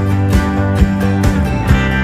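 Background music: an upbeat track with acoustic guitar strumming and a steady beat.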